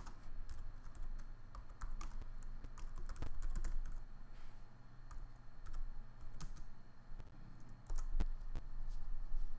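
Typing on a computer keyboard: irregular key clicks as a terminal command is typed, with a faint steady low hum underneath.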